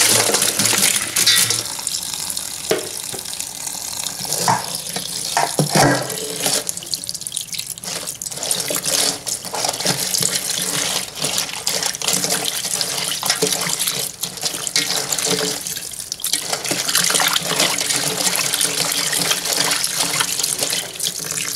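Tap water running steadily into an enamel basin of water while a hand swishes and rubs raw shrimp to wash them, with irregular splashes.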